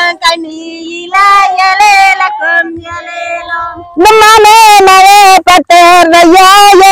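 A woman singing a Tamil kummi folk song, a work song of rice transplanting, in long wavering held notes. The singing is softer for the first few seconds, and from about four seconds in the voice is loud and close.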